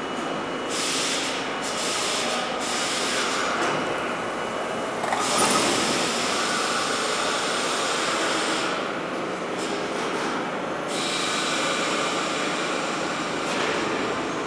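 R32 subway car standing at the platform with its equipment running and a steady hiss of air. The high hiss comes and goes, with the loudest burst about five seconds in, as the doors close.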